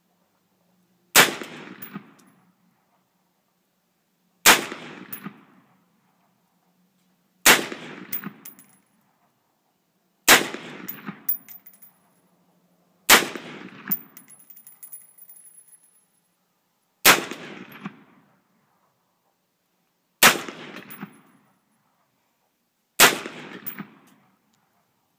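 DPMS AR-15 rifle fired semi-automatically in slow single shots: eight sharp shots about three seconds apart, each followed by an echo dying away over about a second.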